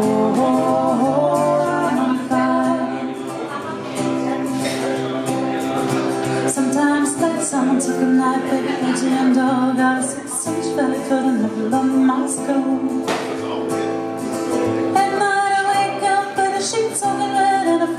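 Live music: a woman singing into a hand-held microphone with wavering, held notes, backed by strummed acoustic guitar.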